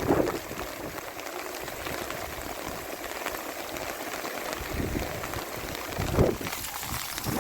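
Heavy rain falling steadily, a dense patter of drops on surfaces, with a short louder dull sound about six seconds in.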